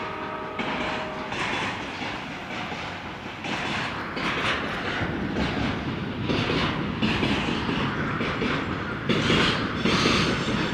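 Train passing very close by: a steady heavy rumble with the wheels clacking over the rail joints roughly once a second. It is close enough to make the ground shake.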